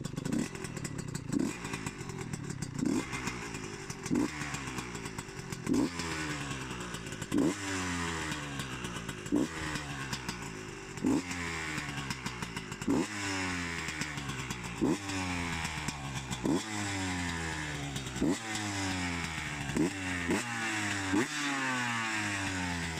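Husqvarna SM125 supermoto's single-cylinder engine being revved over and over: about fourteen quick throttle blips, one every one and a half to two seconds, each snapping up and then falling back toward idle.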